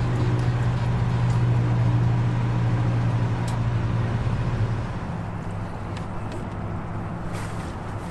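A steady low engine hum, loudest for the first few seconds and then easing down a little under halfway through.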